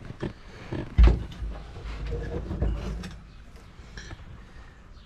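Handling noise from a camera being moved and repositioned: a loud knock about a second in, then knocking and rubbing that dies down after about three seconds.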